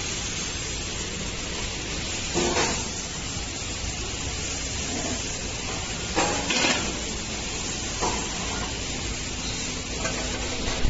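A single-head linear weigher running, with a steady noisy hiss. Brief louder rattles of snack pieces falling through the weigh buckets come about two and a half seconds and six seconds in, and a smaller one around eight seconds.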